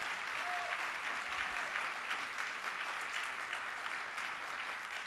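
Audience applauding, a steady, dense clapping of many hands.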